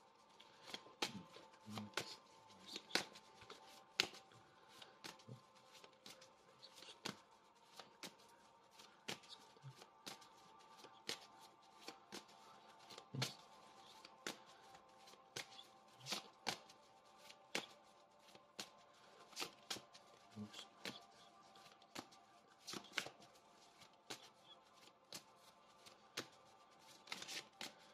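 Deck of Lenormand oracle cards being shuffled by hand: faint, soft card clicks and slaps at an irregular pace, roughly one or two a second.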